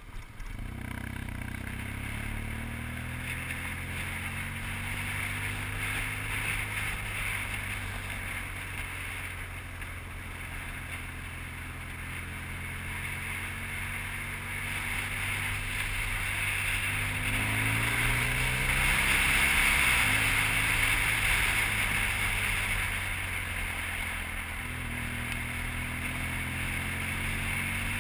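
BMW R1200GS boxer-twin engine running at road speed under a steady rush of wind. The engine note climbs and then drops about two-thirds of the way in, and the wind rush grows louder over the same stretch.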